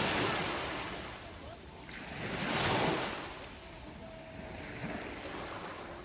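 Small sea waves breaking and washing up a pebble-and-shell beach. There are two loud surges, one right at the start and another about two and a half seconds in, each fading into a softer hiss of water over the stones.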